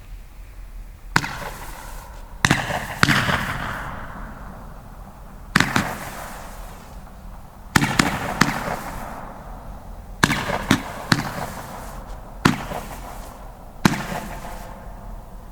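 Dominator Platinum Pink Roman candles firing: about a dozen sharp pops spread irregularly, some in quick runs of two or three, each followed by a fading hiss.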